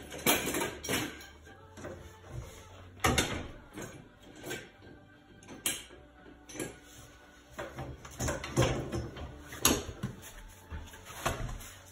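Irregular knocks and clinks, about one a second, from hands working a steel car wheel loose on a jacked-up car and pulling it off the hub.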